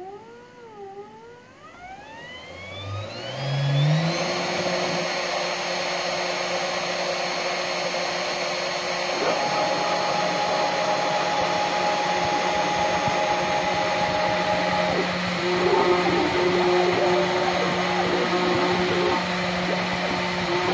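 Homemade CNC milling machine's spindle motor spinning up, its whine rising in pitch for about four seconds and then running steady with a hiss. From about nine seconds in, further tones come and go and the sound turns more uneven as the bit cuts into the copper-clad PCB board.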